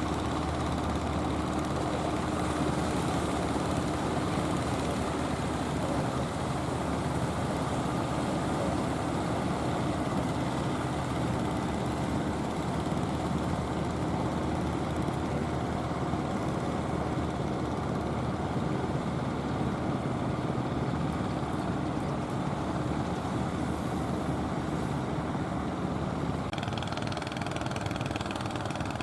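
A motor boat's engine running steadily, a constant hum with a noisy wash over it; its sound changes shortly before the end.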